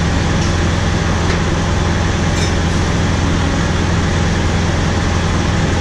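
Heavy diesel engine idling with a steady low hum, with a faint click about two and a half seconds in.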